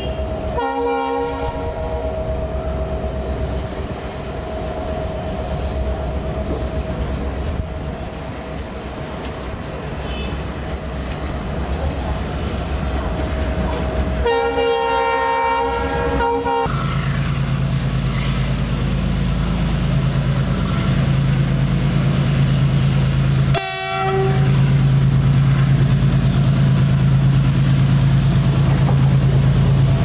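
Indian Railways EMD diesel locomotives running past, hauling coaches, with train horns sounding three times: a brief blast about a second in, a longer one of about two seconds midway, and a very short toot near the end. In the second half a loud, steady, low engine hum drowns out everything else.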